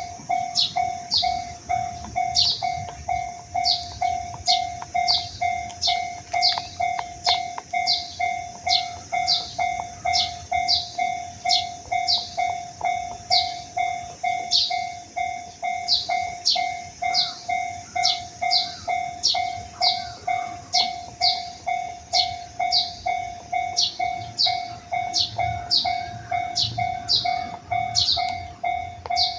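Japanese railway level-crossing alarm ringing its repeating electronic warning strike, about two strikes a second. A higher, falling ding from a second alarm sounds out of step with it.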